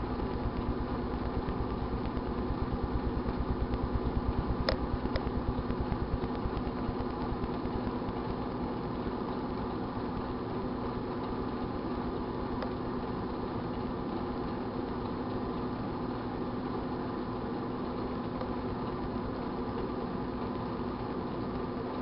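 1978 GE Dual Wave microwave oven running: a steady hum with a low rumble, and a few faint clicks, two about five seconds in and one a little after halfway.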